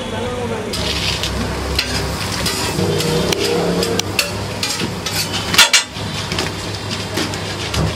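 Crisp fried snack pieces being crushed by hand into a paper plate: irregular crackling crunches, loudest in a cluster a bit past halfway, over a steady low background rumble.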